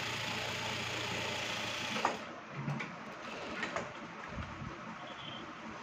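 Industrial single-needle lockstitch sewing machine running steadily while top-stitching a seam on a kameez sleeve. It stops about two seconds in, and a few light clicks follow.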